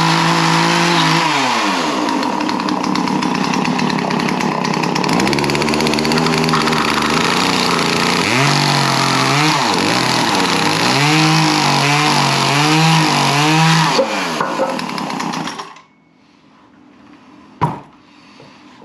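Poulan Pro PP4218A 42cc two-stroke chainsaw running on a newly replaced carburetor. It holds at high revs, drops to idle about a second in, then is revved in a quick series of throttle blips before being shut off about three quarters of the way through. A single sharp knock comes near the end.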